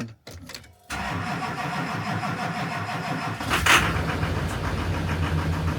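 Pickup truck engine, kept warm by a plugged-in engine block heater, cold-cranking on the starter for a couple of seconds in freezing weather, then catching with a short burst about three and a half seconds in and settling into a steady idle.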